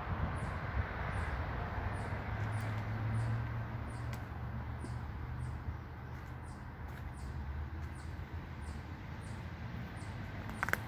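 Outdoor background: a steady low hum, like distant traffic, that swells a little and fades over the first few seconds, with a short, high chirp near the end.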